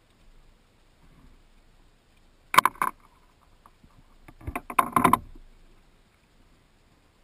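Two short bursts of splashing and knocking, the second longer and fuller, as a hooked bass thrashes at the surface beside the canoe while it is brought in to be landed.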